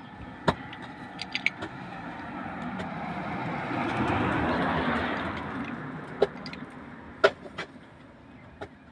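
A road vehicle passing: a noise that swells to its loudest around the middle and then fades away, with a few sharp knocks along the way.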